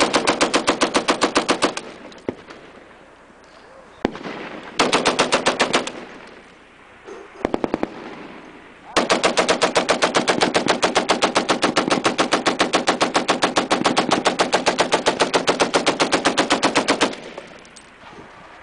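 Colt Model 1915 Vickers water-cooled, belt-fed machine gun firing in bursts at about eight shots a second: a burst at the start, two short bursts in the middle, then one long burst of about eight seconds.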